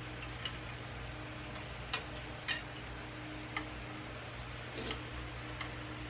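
Five or so short, light clicks and taps spaced irregularly, over a steady low hum.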